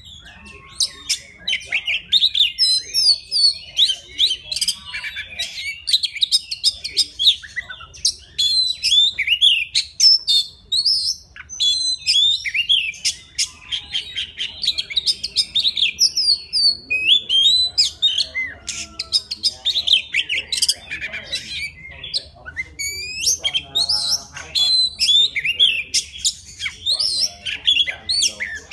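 Oriental magpie-robin singing a long, varied song of clear whistles, trills and sharp clicking notes with only short breaks: its song calling for a female.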